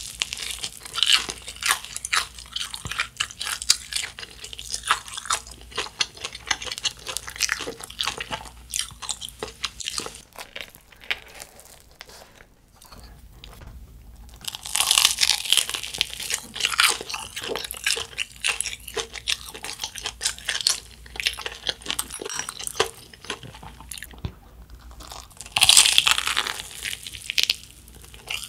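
Crunching and chewing of a crispy fried Korean corn dog: loud crackling bites near the start, about halfway through and near the end, with quieter chewing of the crisp coating in between.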